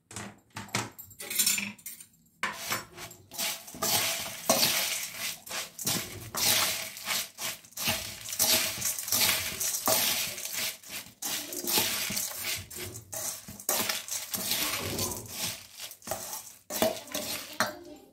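Metal spoon stirring and tossing puffed rice with chopped vegetables in a stainless steel bowl: continuous irregular scraping and clinking of spoon on steel, with the crisp rustle of the dry puffed rice.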